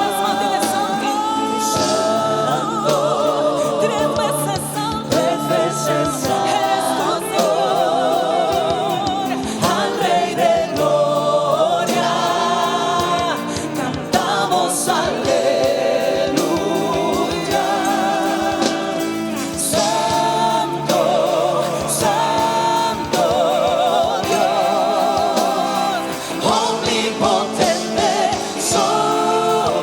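Christian worship song performed by a band, with sung vocals and backing choir voices holding long wavering notes over the accompaniment.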